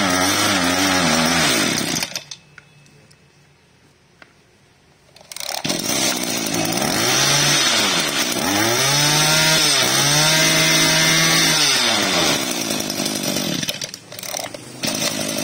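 Hitachi 21 cc brush-cutter's two-stroke engine running and being revved. The sound drops away about two seconds in and is back about three seconds later. The engine is then revved up and down several times before running on steadily.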